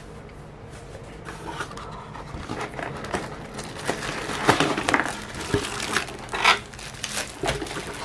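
Cardboard box and its packing being handled and shifted: irregular rubbing and scraping with light knocks, a few louder scrapes past the middle.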